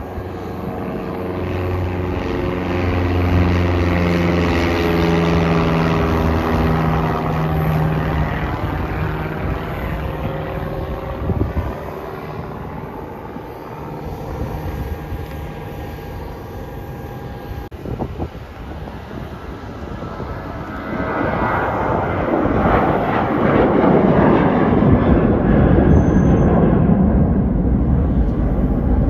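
A small plane passes overhead with a droning engine tone that slowly falls in pitch. From about two-thirds of the way in, the jet engines of a departing Southwest Boeing 737 swell into a loud, steady roar as it climbs overhead.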